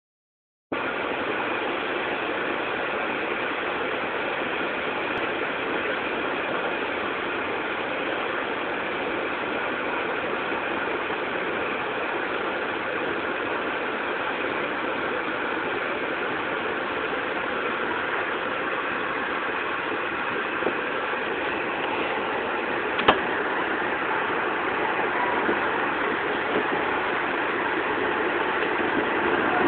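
Steady running noise of an Amtrak passenger train at speed, heard from inside the coach, with one sharp click about three-quarters of the way through and the noise growing slightly louder near the end.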